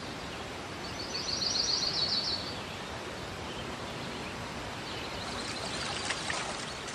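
Natural outdoor ambience: a steady even rushing background with a bird singing a fast trill of rapid repeated notes about a second in, and fainter bird calls later. Near the end a few soft splashes as a wooden oar dips into river water.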